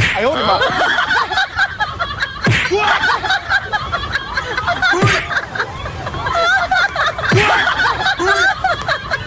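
Many overlapping voices, like a crowd laughing, with three sharp smacks about two and a half seconds apart, each followed by a tone sliding down in pitch.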